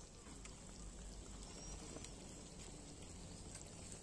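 Faint bubbling of prawn curry gravy simmering in an iron kadhai, a soft steady patter.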